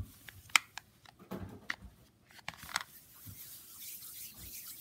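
Scattered light clicks and taps of a plastic toy noodle maker being handled while Play-Doh is pressed through it into noodles, with one sharper click about half a second in.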